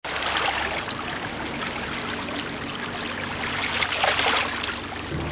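Sea water washing and splashing against the rocks of a seawall, steady, with a swell about four seconds in.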